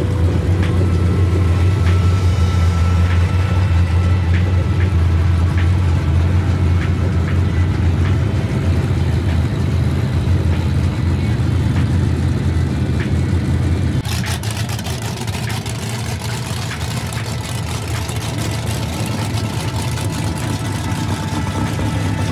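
Drag-race car engines idling in a steady low rumble. The rumble eases abruptly about fourteen seconds in.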